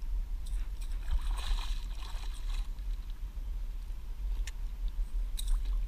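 A hooked fish thrashing and splashing in shallow water at the bank for about two seconds, followed by a few short sharp splashes or clicks near the end. A steady low rumble runs underneath.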